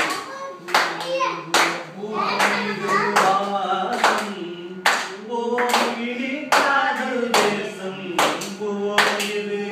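Voices singing a Tamil song, with a group clapping along in time, a little more than one clap a second.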